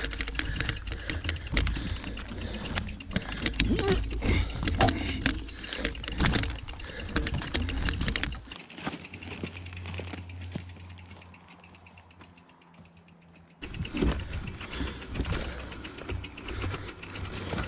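Mountain bike being pushed on foot up a steep forest track: the rear hub's freewheel ratchet clicks rapidly and the bike rattles, with scuffing footsteps. In the middle is a quieter stretch of about five seconds with only a low steady hum, before the clicking comes back.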